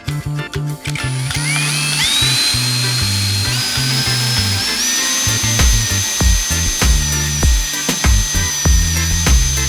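A small power tool's motor whining at high pitch, climbing in steps over the first few seconds and then holding steady, over background music with a regular beat.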